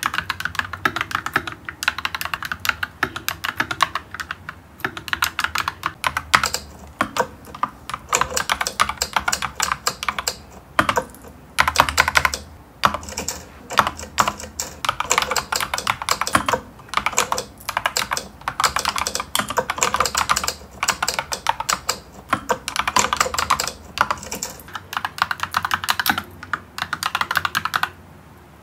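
Fast typing on an Akko Kuromi 5108B mechanical keyboard: a rapid stream of key clacks in runs, broken by short pauses, with a brief stop near the end.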